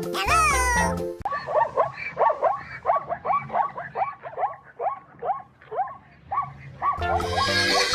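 A small dog yapping over and over, about three short yaps a second, each falling in pitch. Children's music plays briefly at the start and comes back near the end.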